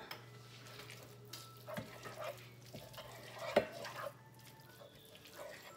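Wooden spoon stirring diced chicken and pesto in a fry pan: a few soft scrapes and taps, over a faint steady low hum that stops near the end.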